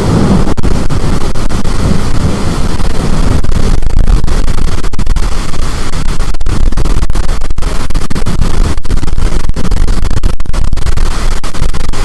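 High storm wind blasting the microphone: loud, constant wind noise, heaviest in the low end, with many brief dropouts as the recording overloads.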